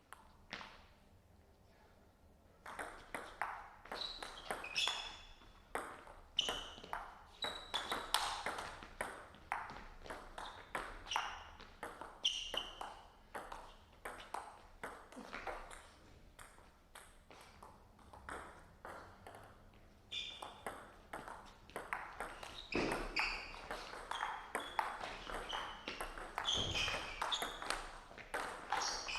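Table tennis ball clicking off rackets and the table in rapid rallies, starting about two and a half seconds in, each hit a sharp ping.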